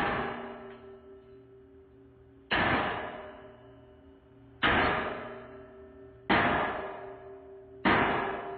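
Hammer striking a welded steel rocker five times, roughly two seconds apart; each blow is a sharp metallic hit that rings and fades before the next.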